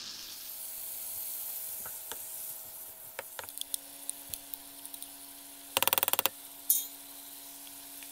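Linguine sizzling faintly in a non-stick frying pan as it is stirred, with sharp clicks of the wooden spatula and spoon against the pan and a ceramic bowl. About six seconds in comes the loudest sound: a quick rattle of about ten taps as the spoon knocks the zucchini cream out of the bowl, followed by one more sharp tap.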